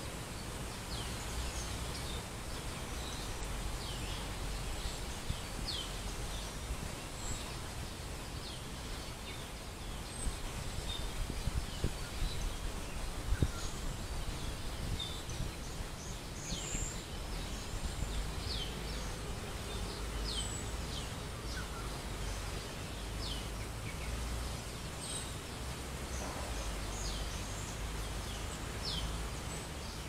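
Outdoor park ambience: a steady low rumble with many short, high chirps scattered throughout, and a few brief clicks around the middle.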